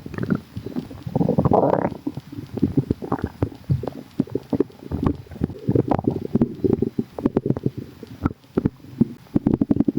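Human stomach rumbling and gurgling: an irregular run of bubbling gurgles and quick pops, with a longer, louder gurgle about a second in.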